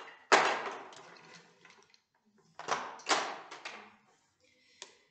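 Toy construction-kit pieces clattering as they are dropped into a tray: a loud clatter about a third of a second in, then another run of knocks between about two and a half and three and a half seconds in, and a small click near the end.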